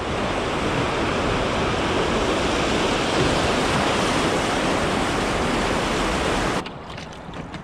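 Churning whitewater of a river rapid heard from a canoe running through it: a loud, steady rush of water that cuts off abruptly about six and a half seconds in, leaving quieter water with a few light clicks.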